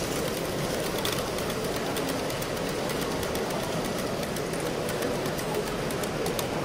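OO gauge live steam model of Flying Scotsman and its coaches running past on model track: a steady rolling noise with a scatter of faint, light clicks from the wheels on the rails.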